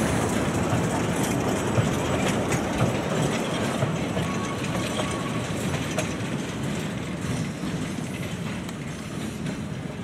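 Narrow-gauge forest railway train, hauled by a 1928 Amemiya steam locomotive, rolling past with its passenger cars and log wagons. The wheels click over the rail joints and the cars rattle, the sound slowly fading as the train moves away.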